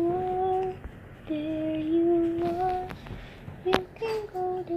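A woman softly humming a slow tune in long held notes, as to a baby, with a sharp click about three and a half seconds in.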